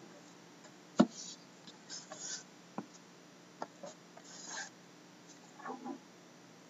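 Plastic shrink wrap being peeled and crinkled off a cardboard trading card box, in short scattered rustles, with a sharp tap about a second in as the box is handled.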